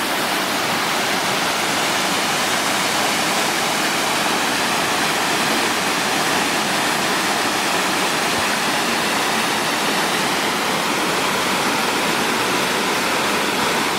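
Waterfall: a steady roar of falling water.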